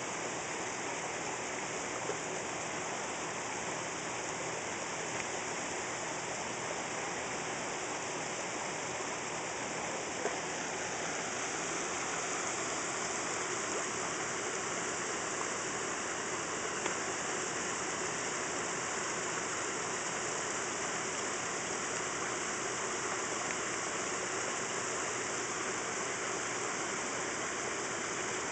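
Small waterfall spilling over rocks into a pond, a steady rush and splash of water.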